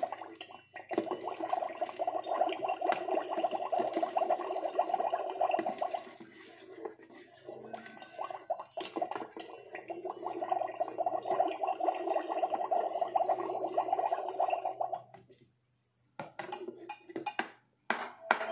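Magic Mixies toy cauldron playing its bubbling brew sound effect through its small speaker while the liquid inside is stirred with the wand, in two long stretches with a short pause between them.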